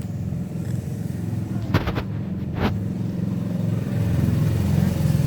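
A cat purring close to the microphone, a steady low rumble that grows louder toward the end, with a few sharp knocks about two seconds in.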